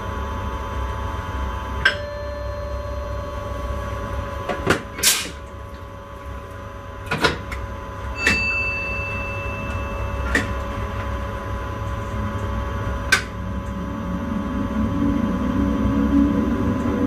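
Inside the driver's cab of a moving intercity train: steady low rumble and electrical hum, broken by irregular sharp clicks and knocks. A short steady beep sounds about a third of the way in, and the rumble grows louder toward the end.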